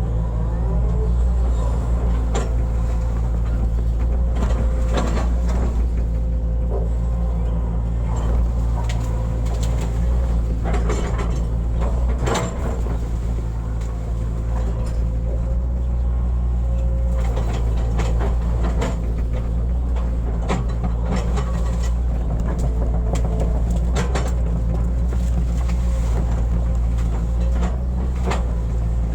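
Hitachi excavator's diesel engine running steadily under load, with a higher steady whine over it and scattered knocks and clanks as it digs.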